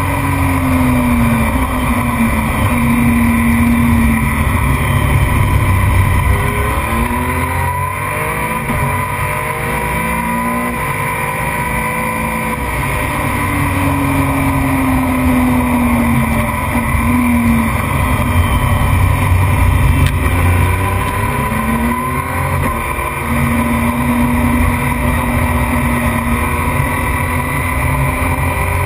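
A motorcycle engine at high revs, heard from an onboard camera. Its pitch climbs and drops several times as the rider shifts gears through the straights and corners, over heavy wind rush.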